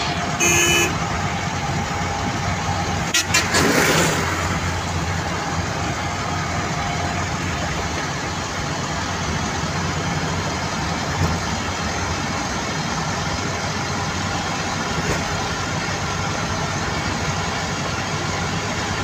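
Suzuki Khyber car running on the road: steady engine, road and cabin noise carrying a hum from the gearbox, which the driver says has a very strong gear whine. A short horn toot sounds about half a second in, and a brief loud rush of noise comes around three to four seconds in.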